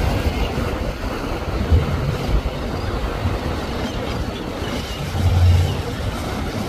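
Large motor yacht running at speed: low engine rumble under the rush of its wake and bow spray, swelling briefly about five seconds in.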